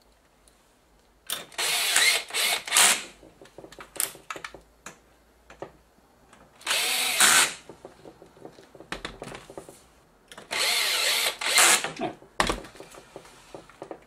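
Electric screwdriver running in three bursts of one to two seconds each, driving in the screws that fasten a TV power supply board to its metal chassis, with small clicks between the bursts and a single knock near the end.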